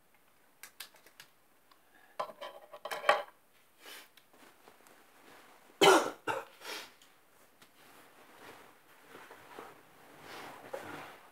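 A person sneezing: a loud burst about three seconds in and a sharper, louder one about six seconds in, followed by softer breathing sounds.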